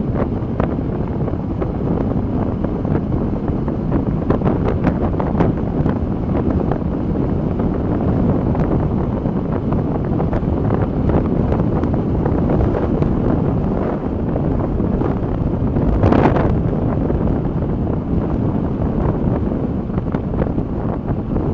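Wind buffeting the microphone: a steady low rumble with many small crackles, and a louder gust about sixteen seconds in.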